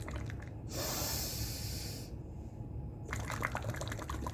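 Air blown out through a drinking straw bubbling in a glass of water, broken about a second in by a sharp, hissing breath in through the nose; the bubbling starts again about three seconds in.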